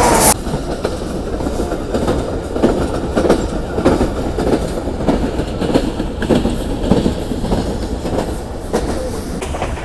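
Passenger train running along the track, heard on board: steady rumble with irregular clattering knocks from the wheels over the rails. A loud held tone cuts off just after the start.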